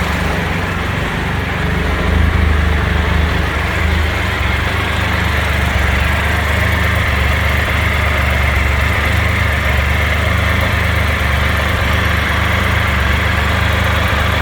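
Triumph Explorer 1200's three-cylinder engine idling steadily while hot, making the racket that the owner says it makes whether the engine is hot or cold.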